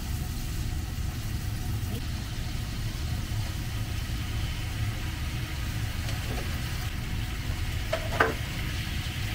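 Meat-wrapped vegetable rolls sizzling in a frying pan as yakiniku sauce is poured in and they are turned with chopsticks, over a steady low hum. There is a single sharp clack of chopsticks against the pan about eight seconds in.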